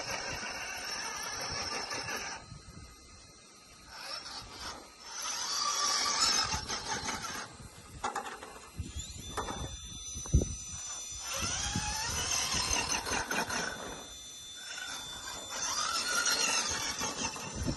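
RC rock crawler's motor and gears whining in repeated bursts, the pitch rising and falling as it is throttled on and off. There is a sharp knock about ten seconds in.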